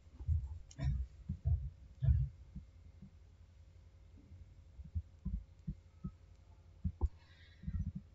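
Dull low thumps at irregular intervals, loudest and closest together in the first two seconds, then sparser and fainter, over a faint steady hum.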